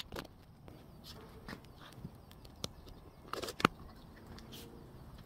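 Scattered light clicks and taps of tools and sanding discs being handled, with one sharper knock about three and a half seconds in.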